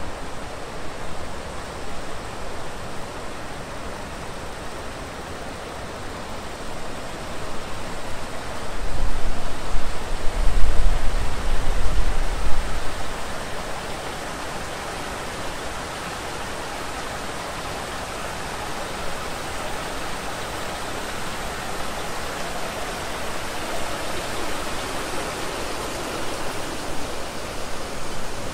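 Steady rushing and trickling of water from a shallow pool's water feature, an even hiss that grows a little stronger near the end. For a few seconds around the middle, a loud low rumble of wind buffeting the microphone covers it.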